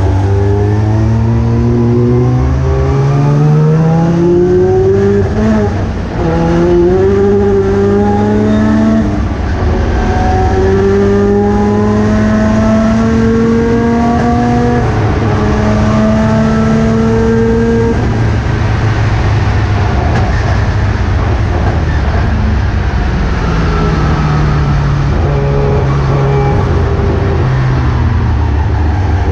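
1979 Mazda RX-7 race car's rotary engine under hard acceleration, its pitch climbing through the gears. It then holds high revs for several seconds, falls away as it slows, and climbs again near the end.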